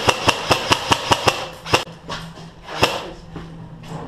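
Airsoft gun firing a quick string of semi-automatic shots, about five a second, then two more single shots about a second apart, with fainter shots after.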